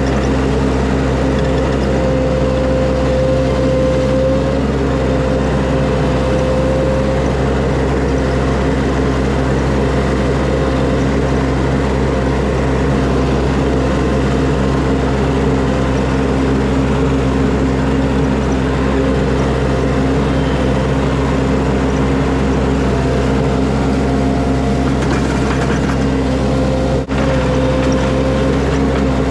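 Skid steer engine running steadily at working speed, with a steady whine above the engine note.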